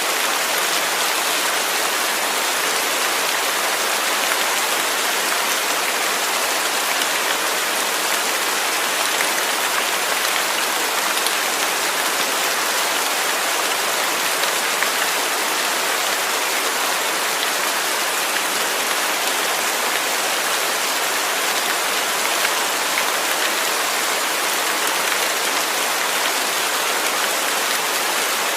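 Steady, heavy rain falling, a dense even hiss of drops with no thunder.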